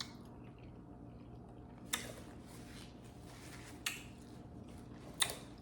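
Quiet eating sounds: three sharp clicks about two seconds apart, the first followed by a soft rustling stretch.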